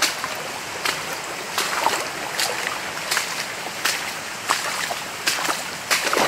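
Footsteps splashing through shallow water on a flooded forest trail, about one step every 0.7 s, over the steady rush of running water.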